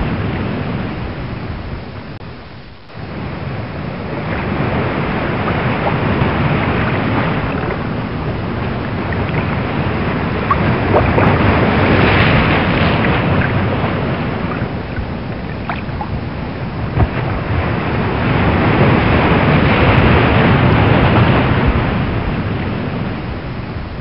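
Rough open-sea waves surging and breaking, with wind over the water. The noise swells and ebbs every several seconds and dips briefly about three seconds in.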